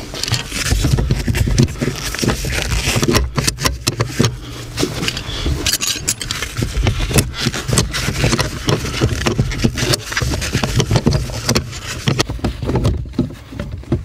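Scraping, clicking and knocking as the clutch pedal of a VW Golf Mk4 is worked free of its pedal bracket by a gloved hand. The glove brushes close to the microphone, adding a rustle.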